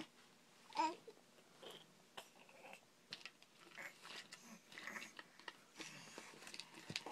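A toddler's quiet babbling and short vocal sounds, the loudest a brief rising-and-falling sound about a second in, with scattered small clicks and taps.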